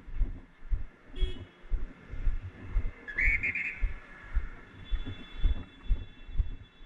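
A whistle blown in a short trilling blast about three seconds in, with a briefer whistle toot just after one second. Steady low thumping about twice a second runs underneath.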